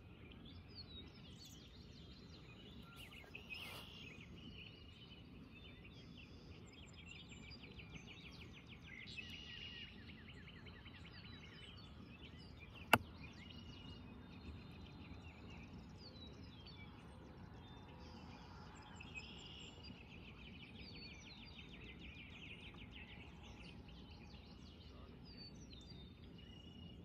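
Birds chirping and trilling over faint outdoor background noise, with a single sharp click about halfway through.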